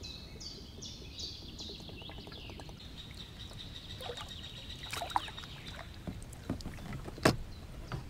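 A bird calling a quick series of repeated high, falling notes, then a thin high steady note. In the second half, oars of an inflatable raft knocking and splashing, with one sharp knock near the end.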